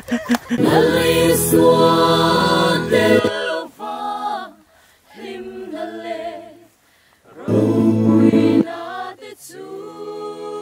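A small mixed choir of men's and women's voices singing a gospel song a cappella, in held phrases with short breaks between them.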